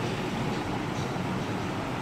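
Steady hum of city road traffic, an even wash of noise with no single vehicle standing out.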